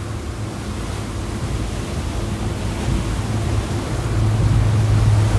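Speedboat under way: a steady engine hum under the rush of water and wind, the engine growing louder toward the end.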